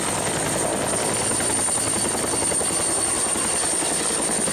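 Helicopter sound effect: a steady rotor chop with a thin, high, steady whine above it.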